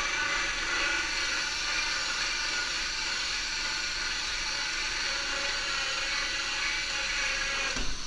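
Cordless drill driving a 1.5-inch hole saw through half-inch plywood: a steady motor whine with the saw teeth grinding through the wood, running without a break.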